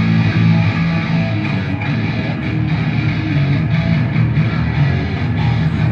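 Live heavy metal over a stadium PA: loud distorted electric guitars playing a heavy, low riff, heard from the stands with the arena's echo.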